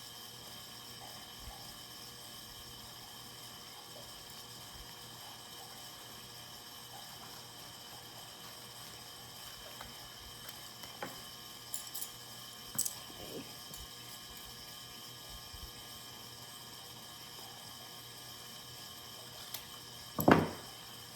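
Steady hiss of a heating and cooling fan, with a few faint clicks and rustles of handling a few seconds past the middle. A short loud thump near the end.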